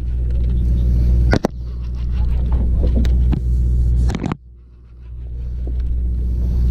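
A boat engine's low, steady drone, broken by two sharp knocks. After the second knock the drone drops away suddenly and builds back up over a second or so.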